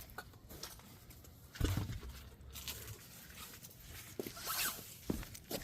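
Car wheel and tire being handled: a dull thump about one and a half seconds in, then scraping, rustling and a few light knocks.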